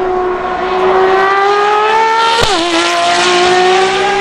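Ferrari FXX K Evo's 6.3-litre V12 accelerating hard, its note rising steadily. About halfway through the pitch drops sharply with a crack as the gearbox upshifts, and the engine then pulls up again.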